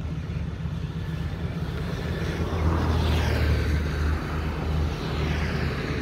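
Traffic noise: a steady low engine hum, with a passing vehicle's rushing sound swelling up about two to three seconds in.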